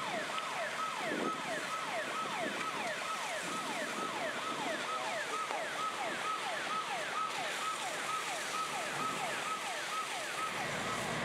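Emergency vehicle siren in a fast yelp: rapidly repeating falling sweeps that stop about ten seconds in.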